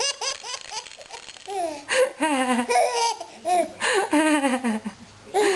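Baby boy in a laughing fit: short quick bursts of laughter, then longer laughs that fall in pitch, over and over.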